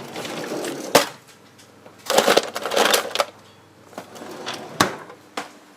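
White Shiba Inu puppy biting and crunching ice in its teeth: a sharp crack about a second in, a burst of crunching between about two and three seconds, then two more sharp cracks near the end.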